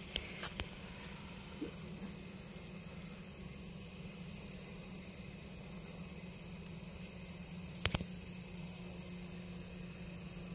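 Crickets chirping in a steady, high, pulsing trill, with a faint low hum beneath and a few light handling clicks, the sharpest about eight seconds in.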